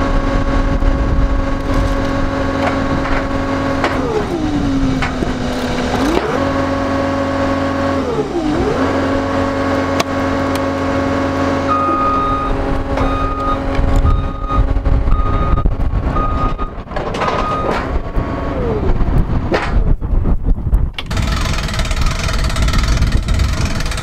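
John Deere compact track loader's diesel engine running at steady revs, its note sagging and recovering twice. About halfway through, its backup alarm beeps about once a second for several seconds.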